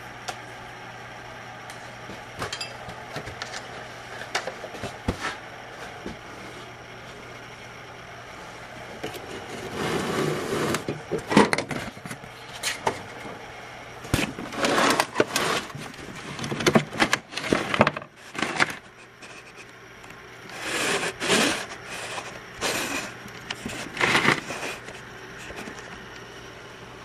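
Delta wood lathe running with a steady hum. From about ten seconds in come repeated bursts of cutting noise as a bit or tool works the spinning pen blank.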